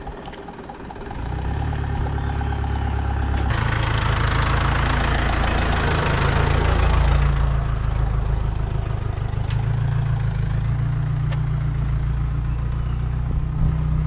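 A vehicle's engine running steadily while travelling, a low even hum that sets in about a second in. A rush of wind noise swells over it for a few seconds a little after that.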